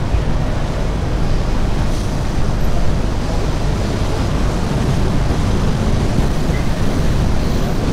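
Lisbon Tram 28 electric tram running along a street, heard from aboard: a steady, unbroken low rumble.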